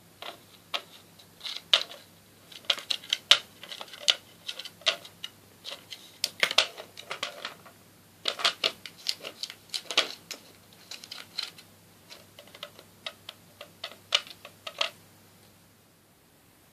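Tabby cat licking close to the microphone: a run of quick, wet clicking tongue strokes in irregular clusters that stops near the end.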